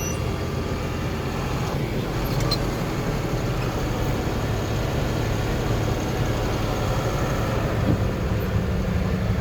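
Farm tractor engine running steadily while pulling a round hay baler.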